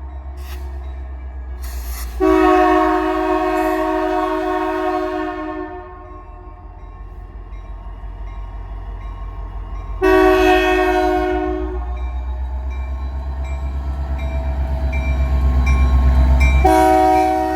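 Diesel locomotive air horn (EMD SD60 CN 5405) sounding a multi-note chord in the grade-crossing pattern: a long blast, a short one about four seconds later, and another long blast starting near the end. The horn sounds harsh, "so foul". Under the horn the locomotive's diesel engine rumbles with an even pulsing, growing loudest as it passes close just before the last blast.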